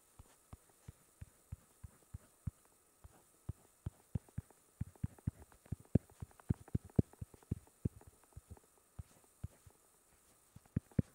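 Irregular light taps on a tablet's touchscreen as strokes are sketched in a drawing app, dozens of short dull knocks at a few per second. They come most thickly about halfway through, thin out a couple of seconds before the end, then pick up again.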